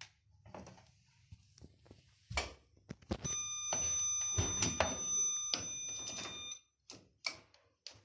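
Door of a Candy CS 105 TXT R front-loading washing machine being worked after the spin: clicks and knocks from the plastic door handle and latch. About three seconds in, a steady electronic beep sounds for about three and a half seconds. Near the end the door clicks open.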